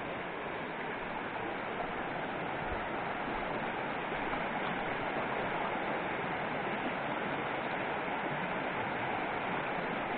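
Clear, shallow mountain stream flowing steadily over stones and small riffles.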